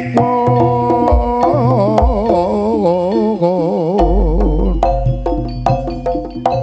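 Live jaranan gamelan music: a wavering melody line with heavy vibrato over ringing pitched percussion and hand-drum strokes. A deep low note enters about four seconds in and holds.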